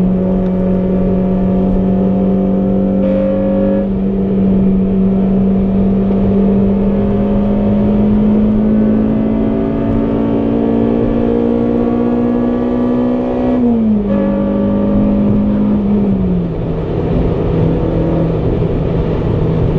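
Honda Civic Type R EP3's 2.0-litre four-cylinder engine heard from inside the cabin, holding a steady note that climbs slowly in pitch, then drops quickly about 14 seconds in and drops again a couple of seconds later. Wind and road noise run underneath.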